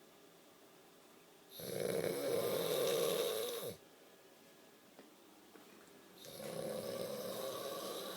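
Snoring: two long snores of about two seconds each, the second starting some four and a half seconds after the first.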